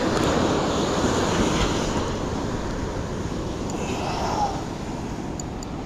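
Ocean surf washing up the beach: a rumbling wash that swells at the start and slowly eases off, with wind on the microphone.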